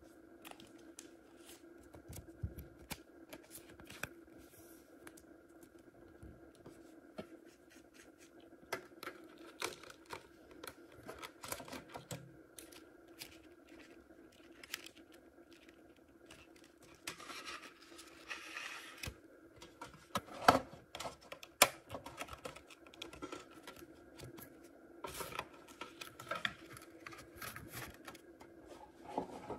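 Handling noise from trading cards and a metal tin lunch box: scattered light clicks and taps, a rustle of card sliding a little after halfway, then two sharper knocks, over a faint steady hum.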